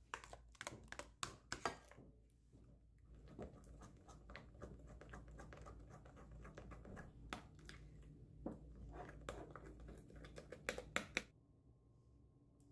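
Small metal spoon clicking and scraping against a ceramic bowl while stirring thick cream-cheese batter with ground pistachios: quick, irregular taps that stop about a second before the end.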